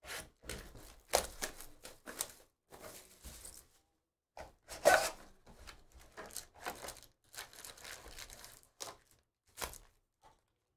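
A trading-card hobby box being torn open and its foil card packs pulled out and stacked: a run of short tearing, crinkling and rustling sounds, the loudest rip about five seconds in.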